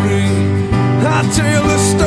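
Background song with guitar and a singing voice.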